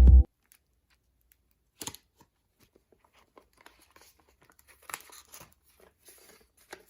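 Background music cuts off just after the start. What is left is faint rustling and crinkling of notebook paper as pages are handled and turned, with soft scattered clicks and a slightly louder tap about two seconds in.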